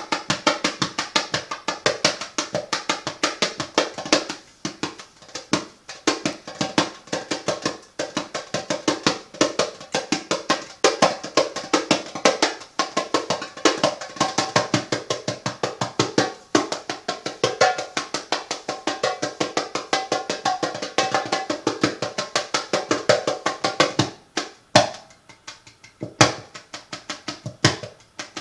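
Hand drum struck with the hands in a fast, steady rhythm of many strokes a second; the beating thins out to a few scattered strokes near the end.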